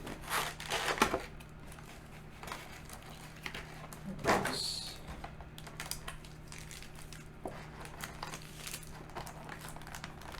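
Plastic and foil trading-card packaging being handled, crinkling and rustling in short irregular bursts, with a louder crackle about four seconds in.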